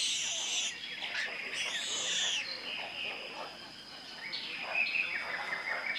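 Jungle ambience: several birds calling over one another, with two long arching whistled calls in the first half and quicker stepped calls later, over a steady high-pitched insect drone.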